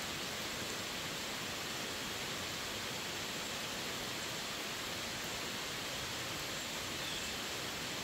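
Heavy rain falling steadily on forest trees and a wet paved road, an even, unbroken rush with no single drops standing out.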